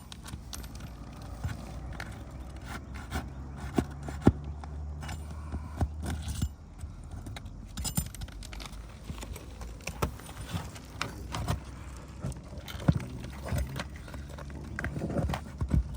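Asphalt roof shingles being pried up and unsealed with a metal tool: repeated scraping, sharp clicks and taps of metal on shingle grit and nails. A low steady hum runs underneath and stops about six and a half seconds in.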